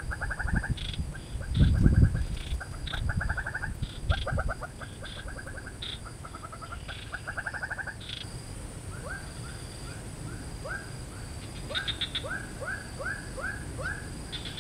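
Wild animal calls from the swamp: short rattling trills of rapid pulses repeat through the first half. From about nine seconds in, a run of short rising chirps follows at two or three a second. Under them runs a steady high whine, and a few low thumps come in the first few seconds.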